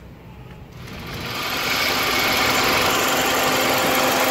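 Engine bay of a running 2006 Toyota Premio with its newly fitted Toyota clutch-type A/C compressor engaged: a steady mechanical whirr with a hum, heard close up. It swells in about a second in, then holds level.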